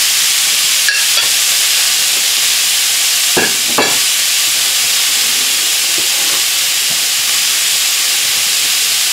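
Diced marinated beef fillet with shallots and ginger sizzling steadily in a hot wok. A few light knocks sound about one second in and again around three and a half seconds in.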